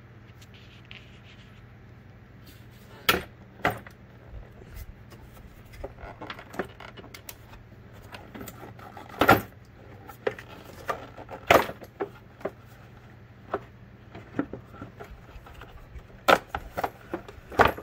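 Irregular clicks and knocks of hard plastic as the air box housing and its rubber intake duct are worked loose and lifted out of the engine bay, with a few sharper knocks among them.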